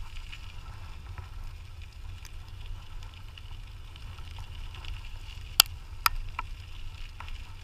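Dog scooter rolling along a trail behind its dogs: a steady low rumble, with two sharp clicks about five and a half and six seconds in.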